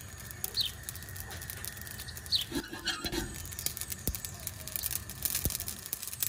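Black mustard seeds dry-roasting in a hot steel wok, crackling and popping with sharp ticks that come faster in the second half.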